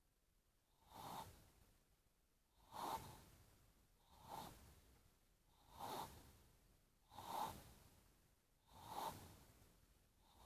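Faint, regular snoring: six short snores about one and a half seconds apart, each starting sharply and trailing off.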